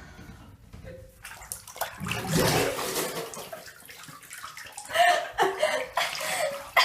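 Water sloshing and splashing in a bathtub as a person moves in it, loudest about two seconds in.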